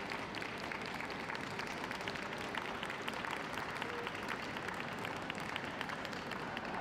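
Audience applauding: many hands clapping at once, at a steady level.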